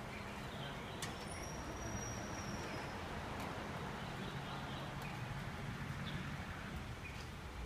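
Street ambience: a steady low hum and background noise, with faint high bird chirps now and then.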